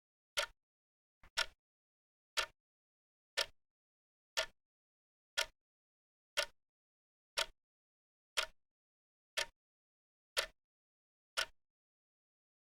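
Clock ticking, one sharp tick a second, with nothing heard between the ticks. Near the start, a faint extra click comes just before one tick.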